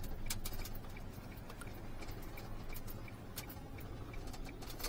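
Cab interior of a Kia truck on the move: a steady low engine and road rumble, with scattered light clicks and ticks throughout.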